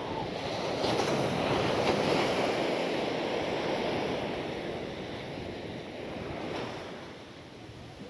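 Sea surf: a wave breaks and washes up the beach, swelling about a second in and slowly fading away over the following seconds.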